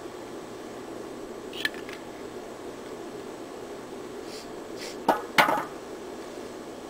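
Plastic drink bottle being handled: a sharp click about a quarter of the way in, then two louder knocks a moment apart near the end, as the bottle is set down. A steady hiss runs underneath.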